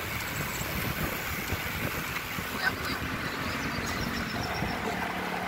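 Wind rushing over the phone's microphone, with tyre and road noise from bicycles rolling along a paved road. A faint low steady hum comes in near the end.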